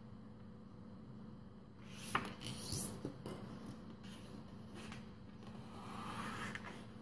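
Sheet of paper rustling and crinkling as it is handled and folded, with fingers rubbing over it. The loudest moment is a sharp crackle about two seconds in.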